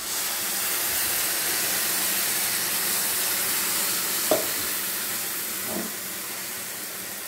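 Water poured into a hot kadhai of fried masala and whole green moong dal, hissing and sizzling hard as it hits the hot oil. The sizzle starts suddenly and slowly eases off, with a brief tap about four seconds in.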